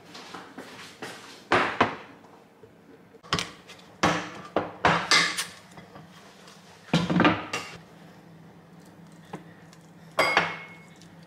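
Dishes and utensils being handled in a kitchen: a series of separate clinks and clatters, several close together in the middle, over a faint steady hum.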